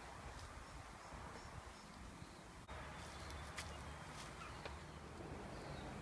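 Faint outdoor background with a few light knocks, typical of wooden saplings being set on a hut roof, and faint bird chirps now and then.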